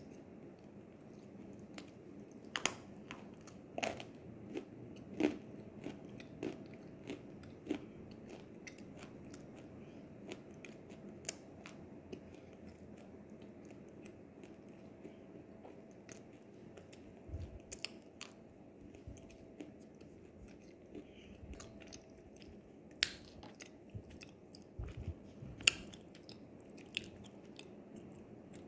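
Close-up mouth sounds of biting and chewing crunchy nzu (edible clay): sharp crunches roughly once a second for several seconds, then sparser crunches, then a few more bites near the end.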